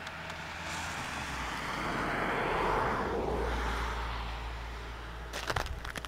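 A car driving past on a wet, slushy road, its tyre noise swelling to a peak about three seconds in and then fading, over a steady low hum. Near the end come a few sharp crunches of footsteps in snow.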